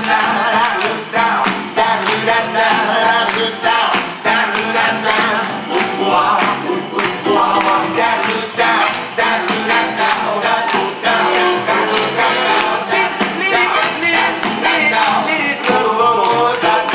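Up-tempo swing music with a steady beat.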